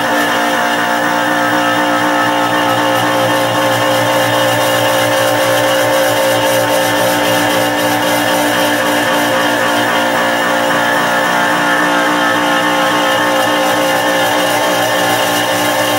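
CNC bench mill cutting aluminium with an end mill: spindle and drive motors running steadily with a whine that holds several tones, the upper part warbling slightly as the cutter moves around the pocket.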